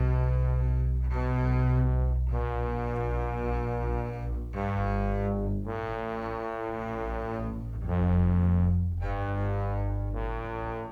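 Instrumental music: slow, sustained low bowed-string notes like cello or double bass, changing pitch about once a second.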